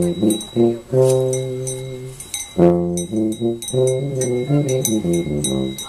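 A brass instrument playing a tune of short notes mixed with a few longer held ones.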